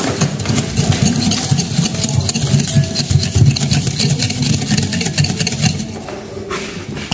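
Wire whisk beating egg yolk and sugar in a glass bowl: a fast, steady clatter of the metal tines against the glass, which eases off near the end.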